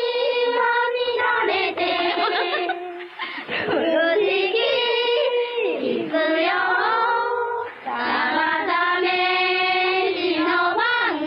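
A group of Japanese girls singing a song together, with long held notes that slide between pitches. The voices are an AI remake of a 1929 recording.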